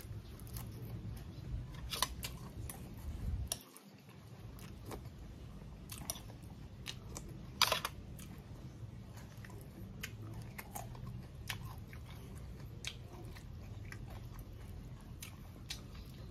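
Close-up chewing of a mouthful of crisp fresh herbs, with scattered crunches and mouth clicks and one louder crunch about eight seconds in.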